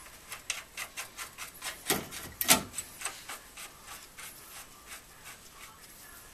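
Disc brake rotor being turned by hand on its hub, scraping against the brake backing plate in a run of rubbing clicks. The clicks are loudest about two and a half seconds in and thin out toward the end. The rotor is hitting the backing plate and not yet clearing it.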